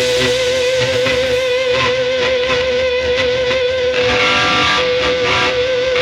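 NOVO Serus J electric guitar playing, with one long note held and wavering slightly in pitch under other notes.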